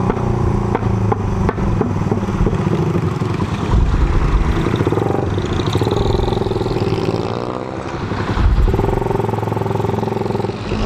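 Suzuki Raider 150 single-cylinder four-stroke engine running under way, fitted with a 28 mm flat-slide carburettor still being jetted. It pulses quickly and evenly at first, then its pitch rises as it accelerates in the middle and settles.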